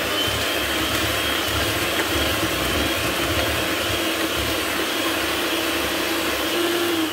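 Electric hand mixer running steadily at speed, a steady motor whine, as its beaters whip creamed butter and sugar with a freshly added egg.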